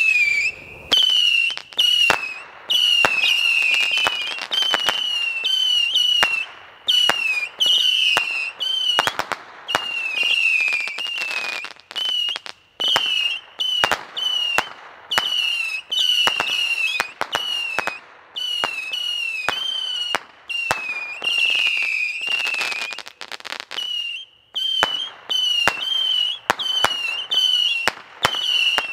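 A 91-shot Saturn missile battery firing in rapid succession: each small rocket goes off with a short whistle and a sharp pop, about two a second, so the whistles and bangs overlap. There are brief lulls a little before the middle and about four-fifths of the way through.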